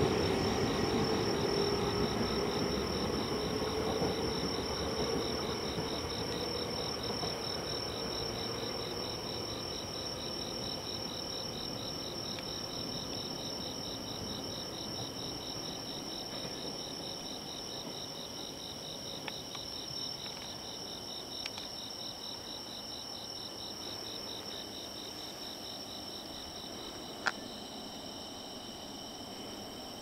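Several autumn insects chirping steadily in a chorus, one of them in a fast, even pulsing trill, while the low rumble of a departing 115-series electric train fades away over the first several seconds. A single sharp click sounds near the end.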